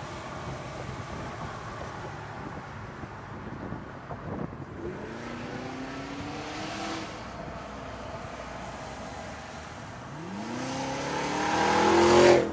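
2023 Cadillac Escalade V's supercharged 6.2-litre V8 and exhaust running at a cruise, rising in pitch as it accelerates about four seconds in, then again from about ten seconds in. The second pull grows loud as the SUV draws alongside near the end.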